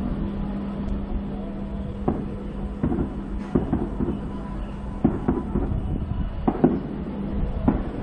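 Aerial fireworks shells bursting at a distance: about ten booms, several in quick pairs and threes, starting about two seconds in, over a steady low rumble.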